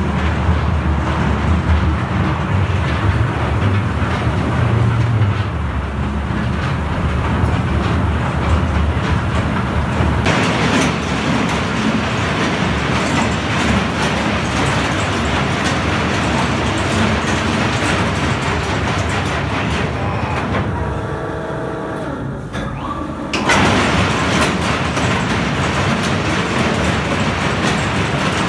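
Heavy underground mining machinery running with a loud, steady mechanical clatter. About ten seconds in it turns harsher and hissier. Around twenty seconds it eases to a thinner hum for a couple of seconds, then comes back in abruptly.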